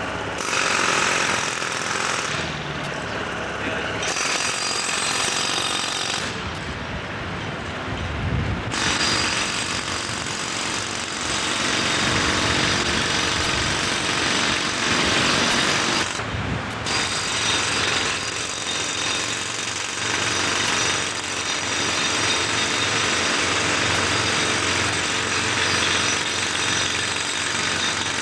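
Demolition breaker hammering on the building's concrete in long rapid spells, stopping briefly three times, over the low running of the machine.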